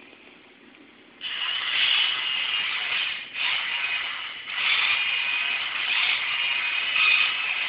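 Small DC motor powered through an ultracapacitor starts about a second in and runs with a steady whirring buzz, dropping out briefly twice as its switch is flicked off and on. The capacitor lets it start and run with good torque from a current-limited supply.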